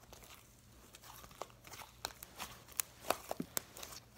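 Thick homemade slime being squeezed and pulled in the hands: a string of faint sticky clicks and pops, coming more often from about a second and a half in.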